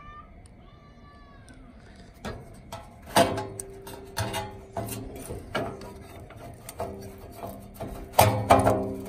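A cat meows once, an arching call about half a second in. From about three seconds in, plucked-string background music with a steady beat takes over and is the loudest sound.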